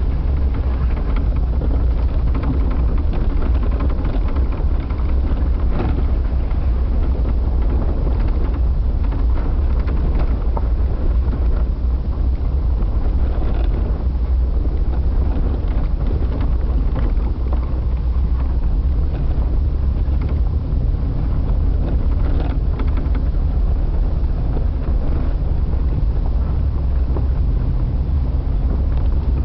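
Jeep engine running steadily at low speed on a sandy dirt trail, heard from the driver's seat as a continuous low rumble, with light rattles and wind on the microphone.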